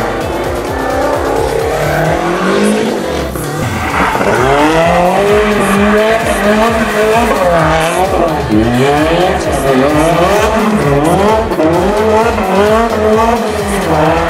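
Competition Lancia Delta rally car engine revving hard, its pitch rising and falling over and over as the car is driven flat out, with tyres squealing. Background music plays underneath.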